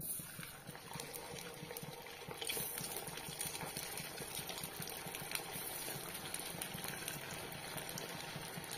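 Sabudana (sago) fritter batter frying in hot oil in a kadai: a crackling sizzle that begins as the batter is dropped in and gets louder about two and a half seconds in as more pieces go into the oil.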